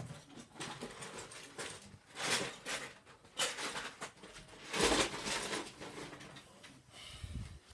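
Blankets rustling and rubbing close to the phone's microphone as the bedding is handled, in several bursts, with a low bump near the end.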